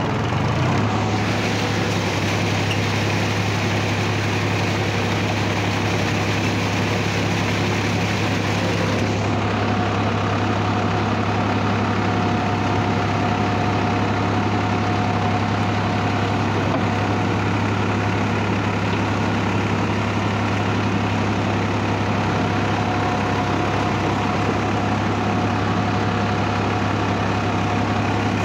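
Massey Ferguson 5245 tractor's three-cylinder diesel engine running steadily at a constant speed while the tractor works through wet, muddy field. A faint steady whine joins in about nine seconds in.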